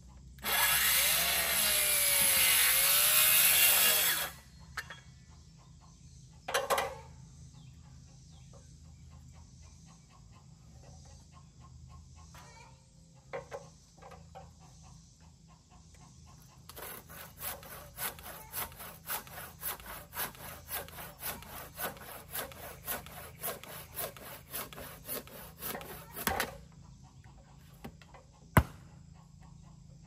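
Circular saw cutting across the top of a wooden post for about three and a half seconds, its whine dipping in pitch mid-cut and coming back up. Later, a handsaw finishes the cut through the middle with steady back-and-forth strokes, about two a second, for around ten seconds, and a single sharp knock follows near the end.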